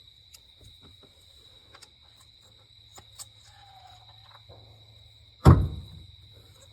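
Light clicks of hand tools, then about five and a half seconds in a loud, sharp clunk as something drops onto the ground. A steady high-pitched whine runs underneath.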